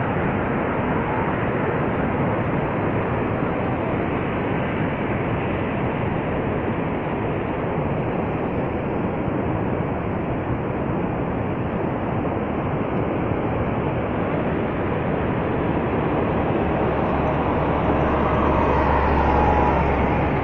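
Steady roar of Niagara Falls: an even, unbroken rush of falling water. It swells slightly, with a deeper rumble, near the end.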